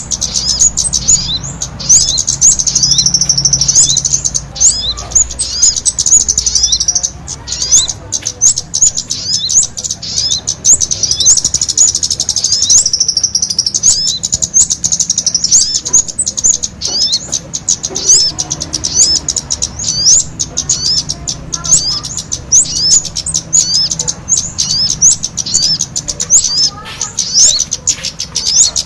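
Bird-lure recording of small songbirds, sogon calls mixed with a noisy kemade: a dense, unbroken run of rapid high-pitched chirps and short downward-sweeping notes.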